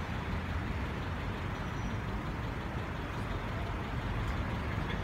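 Steady low rumble of motor-vehicle engines and street traffic.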